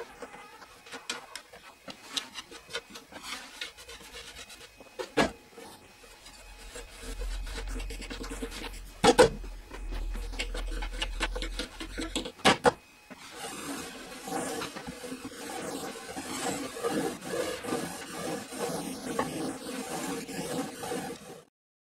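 Handling sounds of a wooden planer jig: scattered knocks and clicks of wood and metal as its threaded-rod corners and frame are adjusted by hand, then, from a little past halfway, a longer stretch of wood rubbing and sliding as the electric planer on its wooden carriage is pushed across the board without running.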